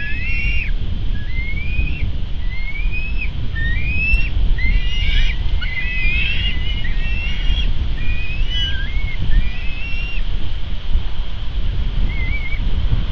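Bald eagle calling: a long series of thin, high, upslurred whistled notes, roughly one a second, that thins out about nine seconds in. A steady low rumble of wind on the microphone runs underneath.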